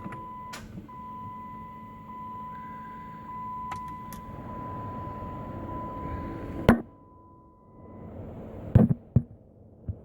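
A 2007 Chrysler 300C's electrical system on a weak battery as the key is turned: a steady electronic beep tone sounds until about eight seconds in, while single clicks come every few seconds, a loud one near seven seconds and two more about nine seconds in. The car clicks instead of cranking, a sign of a flat battery.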